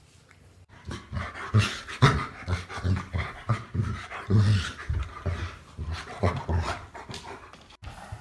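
Bernese mountain dog panting in quick rhythmic breaths, about three a second.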